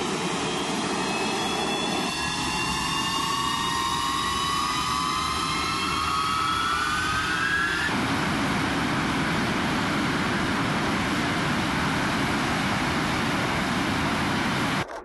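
MiG-31K's Soloviev D-30F6 turbofan engines spooling up, a whine rising steadily in pitch over a loud rushing roar. About eight seconds in it changes abruptly to a steady, dense jet roar.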